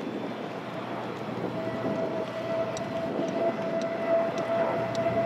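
Single RD-93 turbofan of a JF-17 Thunder jet fighter running through a slow, gear-down fly-by, a steady rush of jet noise growing louder, with a steady high whine joining in about a second and a half in.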